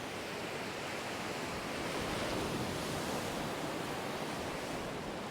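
Surf washing onto a beach: a steady hiss of breaking waves that swells slightly midway.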